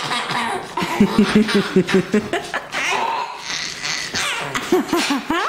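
Baby's belly laugh in quick repeated bursts, about five a second, brought on by her big brother's burping. A second short run of laughs comes near the end and turns into a high squeal.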